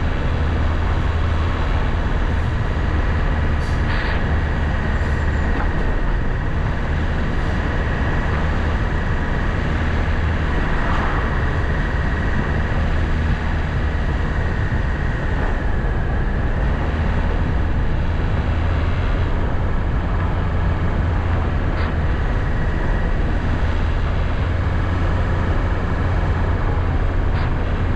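A vehicle driving along a road: steady engine and road noise with a heavy low hum.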